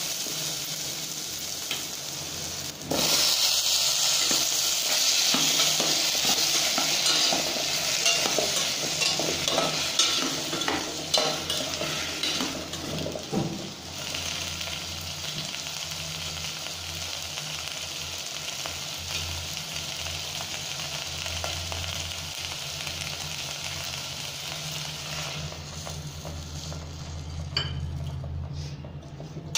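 Vegetables sizzling in hot oil in a stainless steel pot, stirred with a spoon that scrapes against the pot. About three seconds in, the sizzle turns suddenly louder as brinjal slices go into the pan. It dies down near the end once liquid is in the pot.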